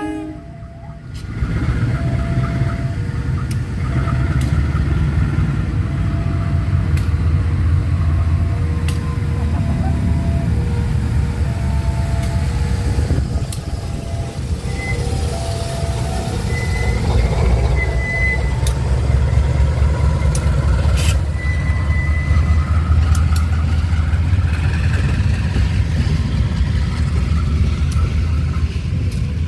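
Diesel-electric CC203 locomotive's engine running with a steady deep rumble, with faint short tones repeating and a few clicks over it.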